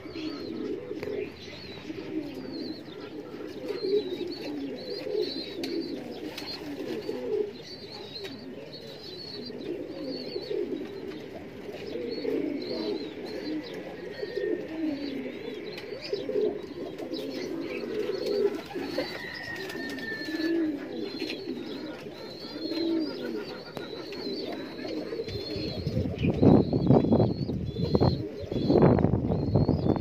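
Caged domestic pigeons cooing continually in a pigeon loft, with small birds chirping high above them. In the last few seconds a louder low rumble comes in over the cooing.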